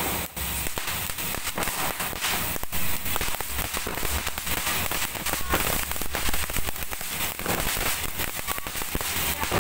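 Ground fountain firework (anar) spraying sparks: a continuous hiss dense with fast crackling.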